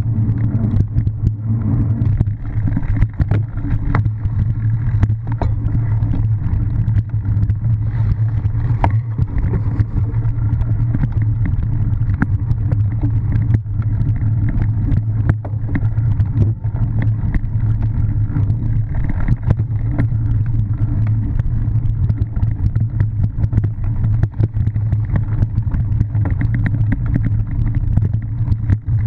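Steady low rumble of wind and riding noise on a bike-mounted action camera as a cyclocross bike is ridden fast over grass, dirt and tarmac, with frequent small rattles and knocks from the bike and camera mount over the rough ground.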